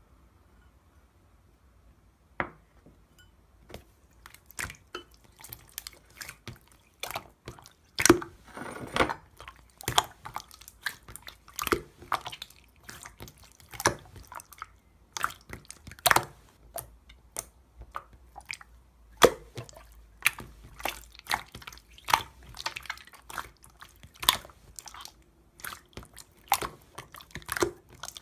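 Clear slime being played with by hand, giving off irregular wet clicks and pops, several a second, starting about two seconds in.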